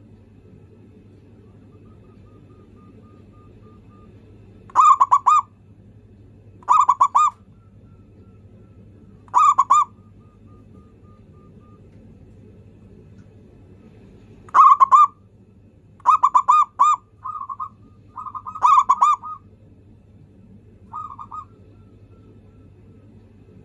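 Zebra dove (perkutut) cooing: about eight short phrases of quick, rolling coo notes, each around half a second long, with gaps of one to several seconds between them.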